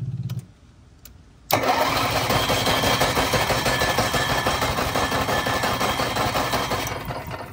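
Onan 4000 Microquiet RV generator, fitted with a replacement carburetor: a brief low hum as the switch is pressed, then about a second and a half in the engine starts abruptly and runs steadily for about five seconds before its sound drops away near the end.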